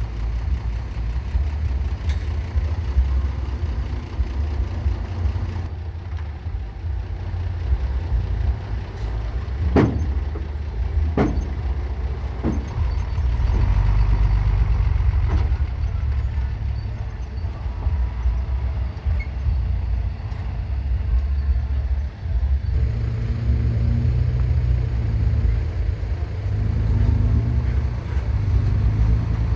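Heavy earthmoving machinery running with a steady low engine rumble, with a few sharp knocks about ten to fifteen seconds in.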